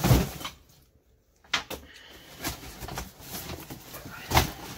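Handling noise: a plastic clothes hanger and a cardboard box being opened, with a few sharp knocks, the loudest right at the start and another strong one near the end, and cardboard rustling between them.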